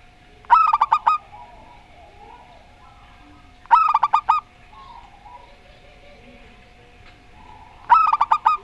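Zebra dove (perkutut) song: three short phrases of rapid, pitched cooing notes, about four seconds apart.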